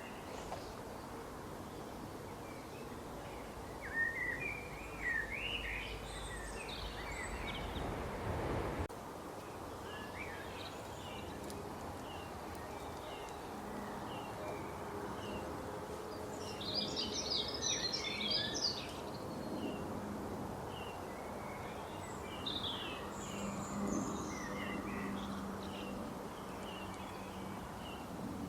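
Small birds chirping and twittering in many short calls over steady outdoor background noise, with a busy flurry of calls a little past the middle. A low rumble underneath cuts off suddenly about nine seconds in.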